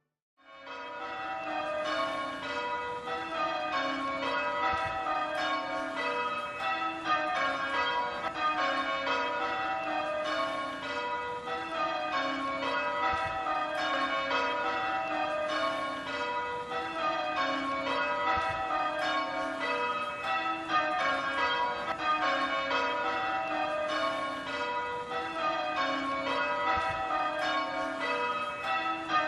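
A peal of church bells change ringing: many bells struck in quick succession, their tones overlapping continuously, fading in within the first second or two.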